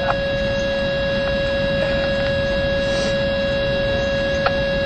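A steady buzzer-like tone held at one pitch, over a rough background rush. There is a faint click near the start and another near the end.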